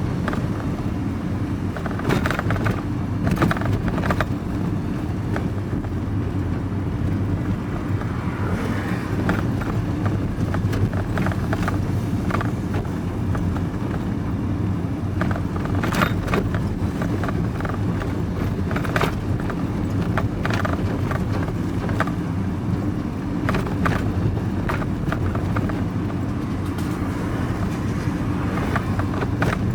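Steady engine and road drone of a vehicle being driven, with scattered light knocks and rattles.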